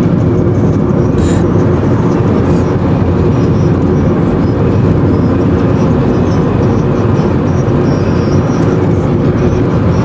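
Loud, steady road noise of a moving car, heard from inside the cabin.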